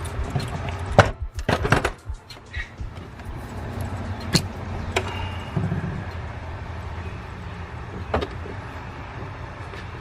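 Background music with a steady low beat, over scattered sharp clicks and knocks of hand tools at work.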